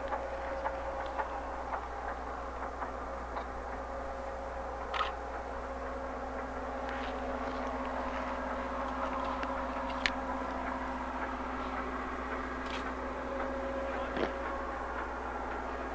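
Steady drone of railway diesel engines running at a constant pitch, with a few small clicks and taps over it.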